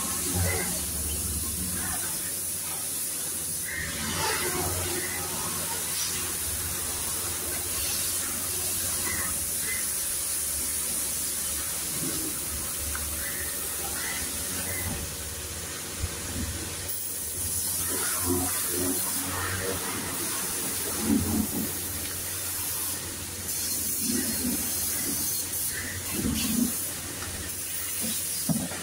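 Pressure washer jet spraying water onto a scooter, a steady hiss with the washer's motor humming low underneath and scattered splashes and knocks.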